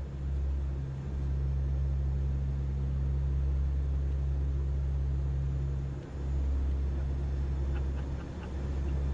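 Steady low mechanical drone, like aircraft engines heard inside the cabin, dipping briefly a few times, with a few faint ticks near the end.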